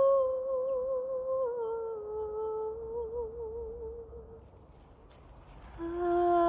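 A woman's wordless singing, a soft humming-like tone with added reverb. She holds a wavering note, steps down to a lower one about a second and a half in, and lets it fade out around four seconds in. After a short pause, a new, lower note begins near the end.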